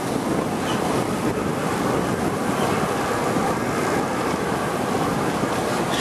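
Mount Takao funicular cable car running downhill, a steady rumbling rush of its wheels on the rails heard from inside the cabin.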